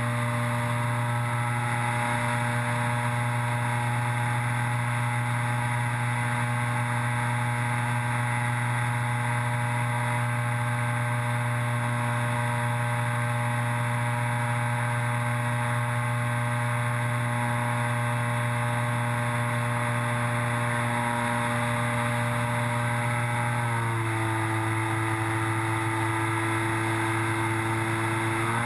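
Electric motor and propeller of a Dynam Cessna RC model plane, heard from a camera mounted on the airframe, running at a steady pitch. About 24 s in the pitch steps down as the throttle is eased back, and it steps back up near the end.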